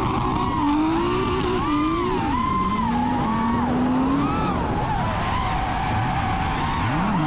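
A car engine revving hard and repeatedly, its pitch rising and falling again and again, over a constant rush of spinning-tyre noise: a car doing a burnout.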